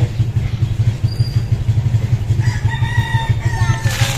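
A rooster crows once, one long call starting about halfway through and falling in pitch at the end, over a steady low motor drone.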